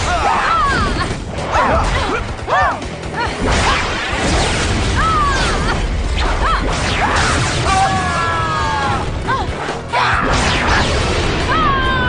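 Action fight soundtrack: music running under a string of stylised combat sound effects, with sharp hits, whooshes and crashes.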